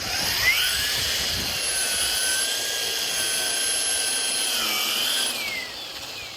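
String trimmer (weed eater) motor spun up with the trigger: a high-pitched whine that rises as it comes up to speed, runs steady for about five seconds, then falls and fades as the trigger is let go.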